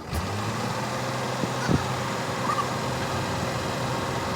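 A steady low motor hum with general workshop noise, and a single sharp knock a little under two seconds in.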